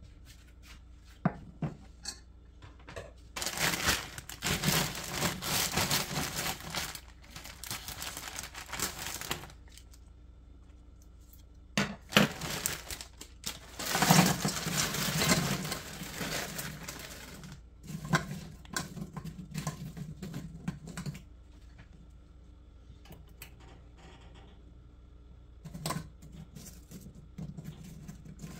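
Plastic bag of frozen sliced apples crinkling as it is handled and emptied, with frozen apple slices tumbling into a stainless steel pot. The rustling comes in several long bouts, with a few light knocks and clicks between them.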